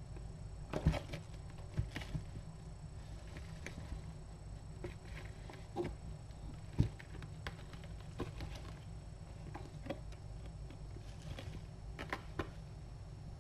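Kittens playing around a cat scratcher bridge on carpet: scattered soft taps and thumps of paws and bodies, with a few sharper knocks about a second in and near the middle, over a steady low hum.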